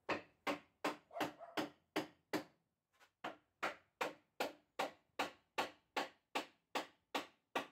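Steady hammering on the wooden frame of a workbench: a run of sharp, ringing blows at about two and a half a second, with a short pause about three seconds in.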